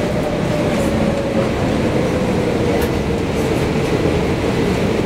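Cabin noise of an Airbus A340-600 on the ground with its four Rolls-Royce Trent 500 engines running at low power: a steady rumble and hiss with a whining tone that slowly drifts lower in pitch.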